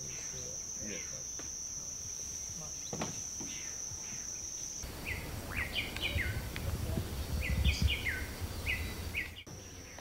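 Steady high-pitched insect trill with faint bird notes. After a cut about five seconds in, the trill stops and a bird calls in quick runs of short whistled notes stepping down in pitch, twice, over a low rumble.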